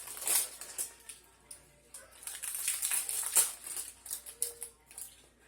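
Plastic snack packaging crinkling and rustling in the hands as a packaged brownie is opened, with irregular small clicks and crackles that thicken about two to three and a half seconds in.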